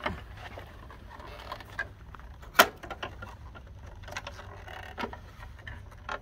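Clicks and knocks of the removable accessory case being worked off the free arm of a Janome HD3000 sewing machine, with one sharp snap about two and a half seconds in.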